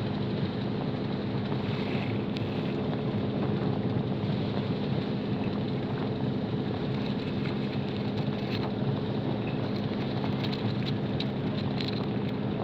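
A boat's engine running at a steady speed, with wind buffeting the microphone.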